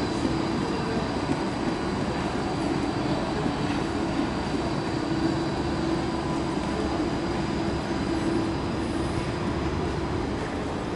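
Steady electric hum and rumble of a light-rail tram, with a held mid-pitched tone over it.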